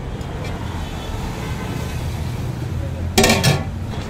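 Steady street-traffic rumble at a roadside food stall, with a loud, brief clang of steel cookware a little after three seconds in.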